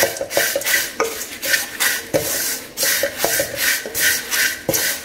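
Wooden spatula stirring dry flattened rice flakes (aval) as they roast in a metal pan: a rhythmic scraping rustle, about three strokes a second, with a few knocks of the spatula against the pan.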